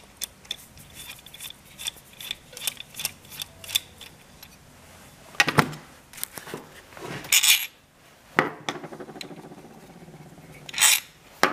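Ratchet clicking in short runs and metal clinks as the bolts holding an ignition coil pack are undone, with a few louder knocks and rattles later on.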